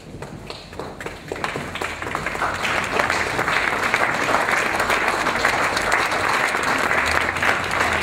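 Audience applauding: scattered claps about a second in swell into steady, dense clapping by about three seconds in.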